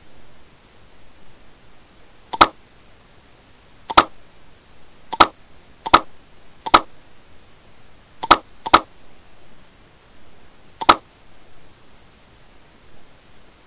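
Computer mouse buttons clicking: eight short, sharp clicks at irregular intervals, two of them close together, over a faint steady hiss.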